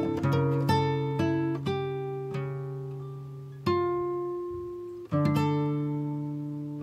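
Background music: plucked acoustic guitar, notes ringing out and fading between new ones.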